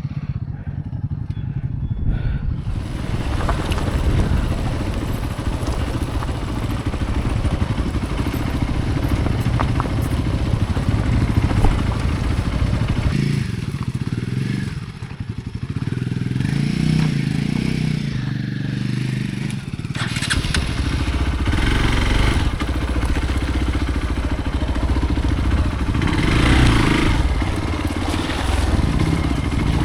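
Hero Xpulse motorcycle's single-cylinder engine running while the bike is ridden off-road, its note changing with the throttle, dipping a little past the middle and shifting again soon after.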